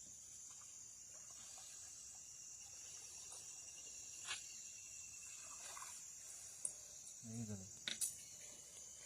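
Steady high-pitched drone of insects in the flooded forest, with a few sharp clicks and a brief low sound about three-quarters of the way through.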